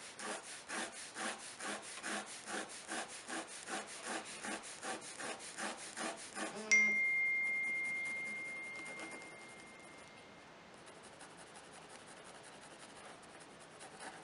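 Pencil hatching quick strokes on textured watercolour paper, a scratchy rub repeating about four times a second as hair strands are drawn in. About seven seconds in, a sudden clear ding rings out and fades away over about three seconds, and the pencil rubbing continues more faintly after it.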